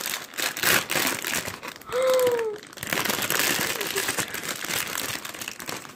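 Packaging crinkling and rustling as a package is torn open and its contents handled. About two seconds in there is a short, falling vocal "ooh".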